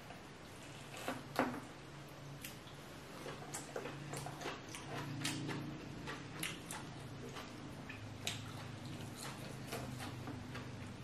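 Close-miked eating sounds: shell and meat of a cooked lobster claw picked apart by hand while the eater chews, giving a run of small irregular clicks and crackles, loudest about a second in.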